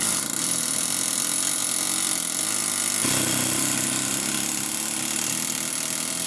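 Pneumatic air hammer running continuously, its punch bit rattling against the centre of an electric PTO clutch bolt. The vibration is breaking loose a PTO clutch that has seized to the engine crankshaft.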